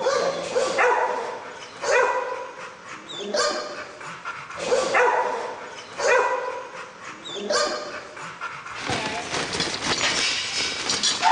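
Dogs barking repeatedly, about one bark every second and a half, with a busier, noisier stretch near the end.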